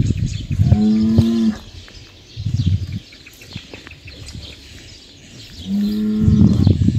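A bull mooing twice: a pitched call about a second in and a longer, louder one near the end, with a short low grunt between them.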